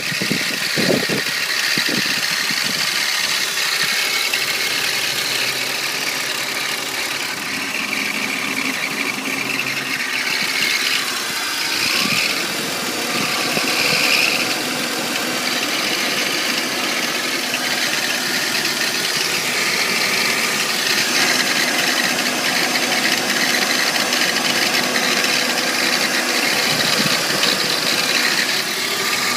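1998 BMW 328i (E36) straight-six engine idling with a steady rattle from the engine bay. The owner says the rattle is loudest with the A/C on and suspects some kind of bearing, but isn't sure.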